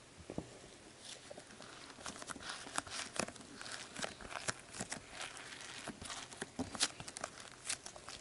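Soft pink slime being folded and squeezed in the hands around tiny foam beads, giving quiet, irregular crackling and small clicks.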